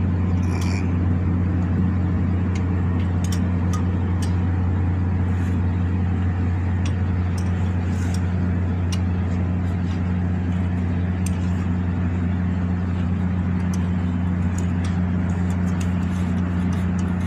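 A steady, unchanging low mechanical hum, with scattered light clicks and taps of hand tools and metal fittings being handled in a truck's engine bay.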